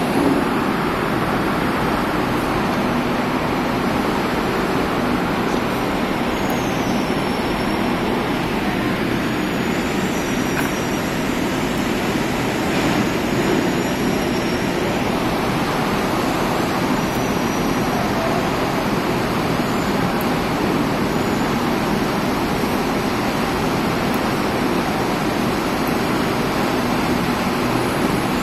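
Steady rush of air from a hot air rework nozzle heating the solder of a surface-mount LED on an LED display module, so the LED can be removed or set in place.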